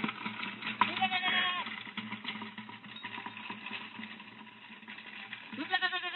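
Goat bleating twice: a short call about a second in and another near the end, over a steady low hum.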